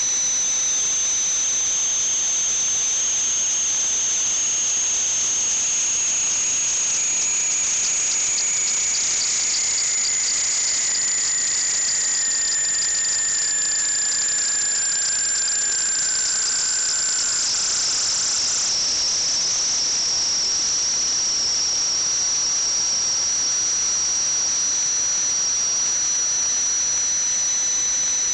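Steady high-pitched whistle over a hiss. A second, lower tone glides slowly downward and stops about two-thirds of the way through, and at that moment the high whistle drops slightly in pitch.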